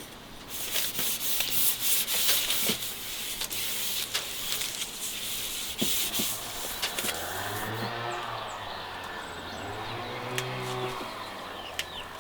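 About seven seconds of brisk rubbing strokes, then a cow lowing in several drawn-out calls, with a few faint bird chirps.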